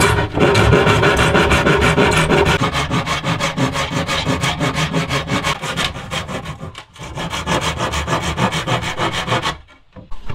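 Wood being sawn by hand: fast, even back-and-forth strokes that falter briefly about seven seconds in and stop shortly before the end.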